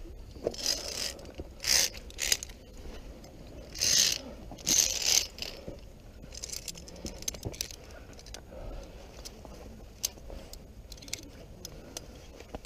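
Via ferrata lanyard carabiners sliding and scraping along the steel safety cable, with several loud rasps in the first five seconds. Lighter clicks and clinks follow as the climber moves on.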